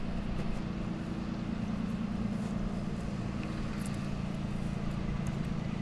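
A steady low mechanical hum, like an engine running at idle.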